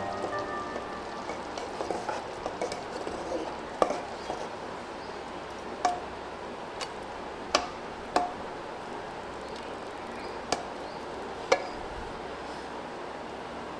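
Stirring in a cooking pot, with several sharp knocks of the utensil against the pot scattered through, over a steady low hiss.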